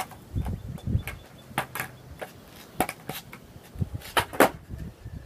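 Skateboard deck and wheels knocking and clacking on asphalt as the rider practises ollie pops in place: a series of irregular sharp knocks, the loudest about four and a half seconds in.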